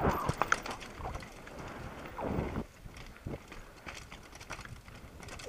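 Mountain bike rattling and clattering down a rocky dirt trail: tyres rolling over stones with many sharp knocks and clicks from the bike. Loudest for the first couple of seconds, then quieter, with scattered knocks.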